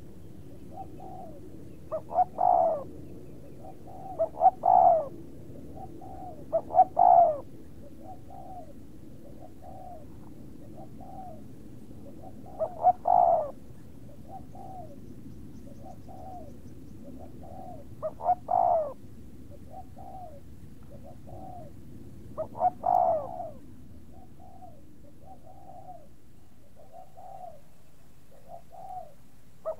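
Birds cooing. Soft low coos repeat about once a second throughout, and every few seconds a louder coo stands out, each led by a couple of short quick notes.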